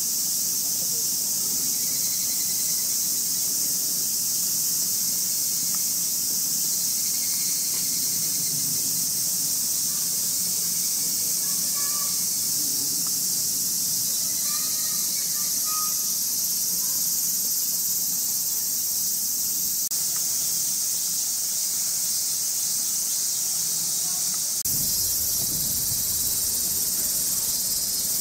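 A dense, steady chorus of summer cicadas: one continuous high-pitched buzzing hiss with no breaks.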